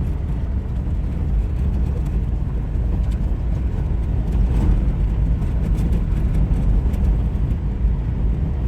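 Steady low rumble of a vehicle driving on a rough dirt trail.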